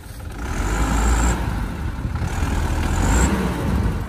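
Mitsubishi Fuso Colt Diesel truck's turbo-intercooled diesel engine labouring at heavy throttle, surging twice with a high whine over the engine note. The throttle is hard enough to pour black smoke as it drags the truck across rough, rutted ground.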